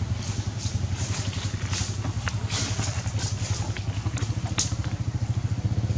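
A small engine running steadily, a low even pulsing hum, with scattered light clicks and crackles over it, the sharpest about four and a half seconds in.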